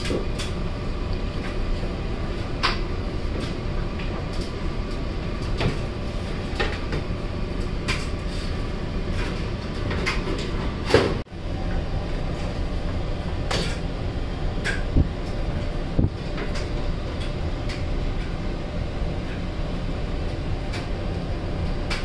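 Scattered metallic clicks and knocks as a tumble dryer's coiled-wire heating element and sheet-metal panels are handled, the loudest knock about halfway through, over a steady background hum.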